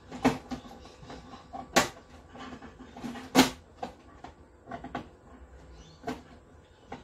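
A screwdriver and hands working on the plastic back panel of a flat-screen TV: a series of sharp clicks and knocks, the three loudest about a second and a half apart in the first half, then lighter taps.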